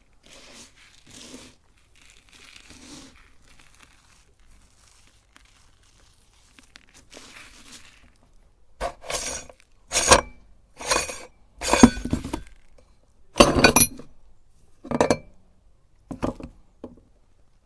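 Hard candy clinking and cracking: faint rustles at first, then a run of about seven loud, sharp cracks roughly a second apart in the second half.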